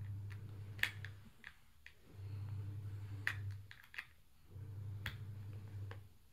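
Chunky plastic toy building bricks clicking and clacking as they are handled and pressed together, in a scatter of sharp, irregular clicks. Under them a low hum swells and drops away about every two and a half seconds.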